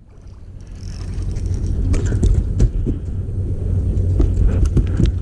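Wind rumbling on the microphone and water moving against a fishing boat, with scattered knocks and clicks. It fades in over the first second or so and then holds steady.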